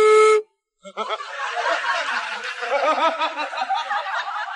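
A short steady electronic tone, then a dubbed-in laughter sound effect: several voices chuckling and snickering together, starting about a second in.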